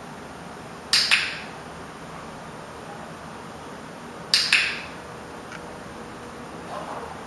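Handheld dog-training clicker clicked twice, a few seconds apart, each a sharp double click-clack, the marker for the puppy's correct response in touch-stick training.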